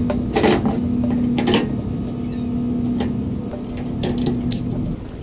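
Plastic grill wheel being fitted onto its steel axle: a handful of sharp knocks and clicks as it is handled, over a steady low hum that drops away near the end.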